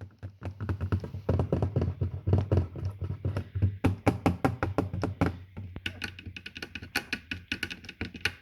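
Rapid knocking and rattling taps, about five a second, over a low hum that fades out about two thirds of the way through; the later taps are sharper and brighter.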